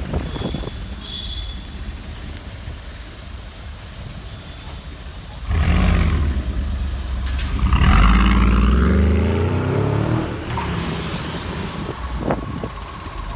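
Brabus-tuned Mercedes-AMG G63's bi-turbo V8 rumbling at low speed, then about five and a half seconds in it accelerates hard with a loud rising exhaust note. The pitch climbs, drops at a gear change and climbs again, then fades as the vehicle pulls away.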